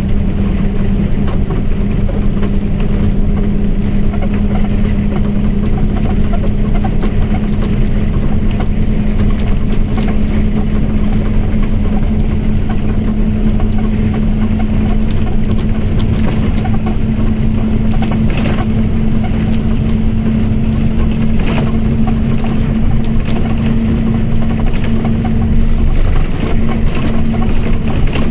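Mercedes-Benz OF1722M bus running at a steady pace: engine rumble under a steady whine from the differential held at one pitch, which breaks off briefly near the end. A couple of sharp clicks sound in the middle.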